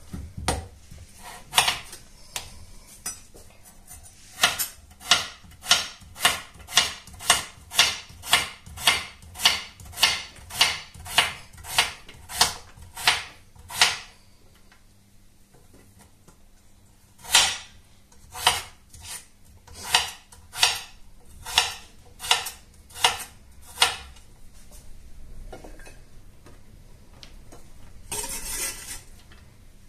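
Chef's knife slicing raw peeled potatoes on a hard cutting board. The blade knocks against the board in steady strokes about two a second, in two runs with a pause between them. A longer scrape follows near the end.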